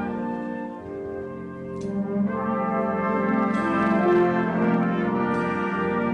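Military concert band playing held brass chords, swelling fuller and louder about two seconds in.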